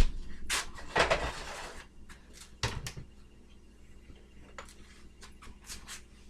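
Kitchen handling noises: a sharp knock, about a second of rustling or scraping, then a few scattered clicks and knocks, like a cupboard and containers being handled while the salt is fetched.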